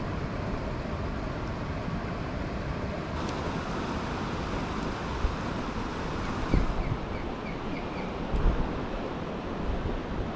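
Steady rush of river water flowing over a rocky riffle, with a couple of low wind bumps on the microphone.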